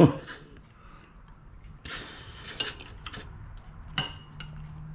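Spoon scraping and clicking in a bowl of thick potato soup, with one sharp ringing clink of spoon against bowl about four seconds in.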